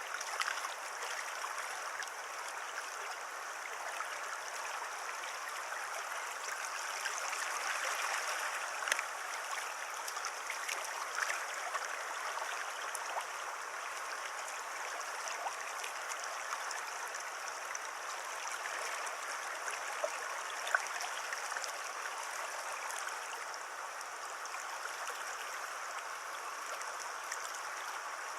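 River water running over stones in a shallow stream: a steady rushing hiss, with a few faint ticks.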